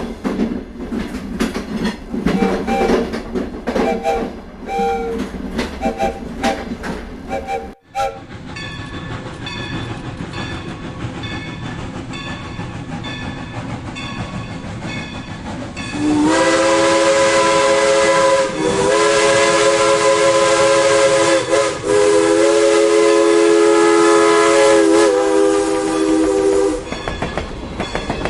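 Train wheels clattering over rail joints, then a long, loud train horn of several notes sounding together, held for about ten seconds with brief dips and cutting off shortly before the end.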